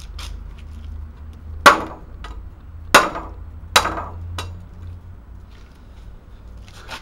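MFH bolo machete chopping into a weathered wooden plank: three sharp chops in about two seconds, then a lighter fourth strike.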